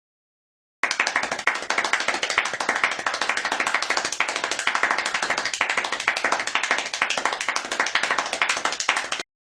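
Clapping sound effect: many hands clapping fast and densely, like applause, starting abruptly about a second in and cutting off abruptly near the end.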